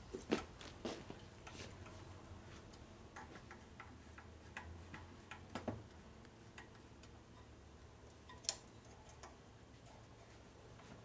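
Scattered light metallic clicks and ticks as a hand driver turns the oil pump's mounting screws on an Ironhead Sportster engine case. The clicks are irregular, with a few close together near the start, one near the middle and a sharper one later.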